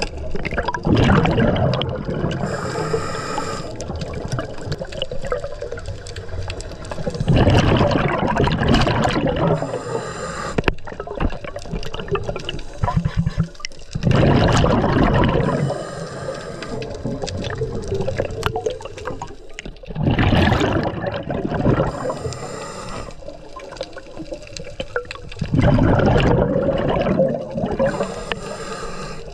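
Underwater scuba breathing through a regulator: a hissing inhalation, then a rush of exhaled bubbles, repeating about every six seconds.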